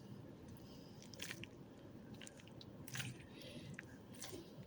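Faint crackling and squelching of a slime-filled dumpling squishy toy being squeezed close to the microphone, with a few short, sharper crackles.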